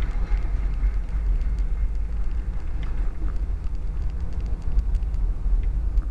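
Steady low rumble of road and engine noise inside a truck's cab while it drives on a snowy highway, with scattered faint clicks throughout.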